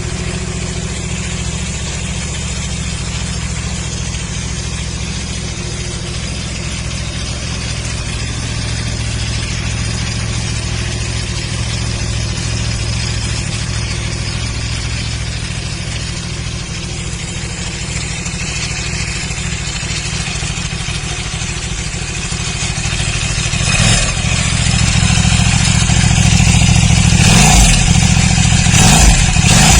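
KTM 1190 RC8's 75-degree V-twin engine idling steadily for a long stretch, then revved in a series of sharp throttle blips near the end, getting louder.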